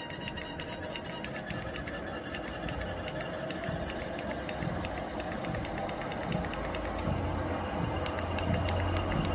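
Urevo SP1 Lite walking treadmill's motor running with a squeaking noise and a rapid, regular ticking, growing gradually louder, with a low hum joining in the second half.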